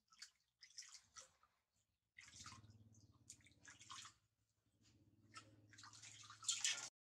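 Water splashing and dripping in a metal basin as a hand scoops it over a baby monkey being bathed. It comes as a string of short, faint splashes at irregular intervals, the loudest near the end.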